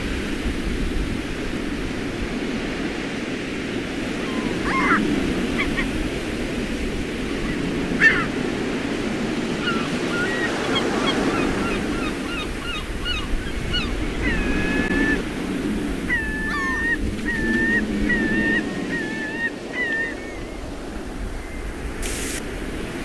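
Ocean coast ambience: steady wind and surf noise, with birds giving short, repeated calls through the middle stretch.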